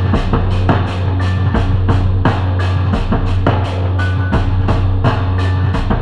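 Background music with a steady drum beat, about three hits a second, over a strong bass line.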